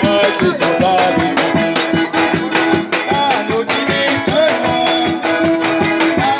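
Lively music with a fast, even beat of shaker and drum strokes under a melody and a singing voice.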